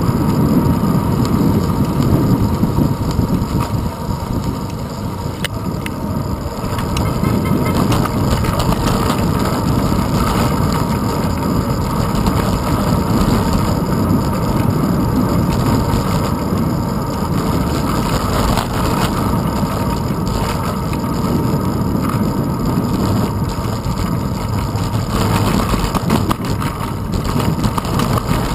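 Wind rush and road rumble from a bicycle rolling along an asphalt street, picked up by a handlebar-mounted GoPro Hero 2: a steady low rumble that swells and dips with no clear tone.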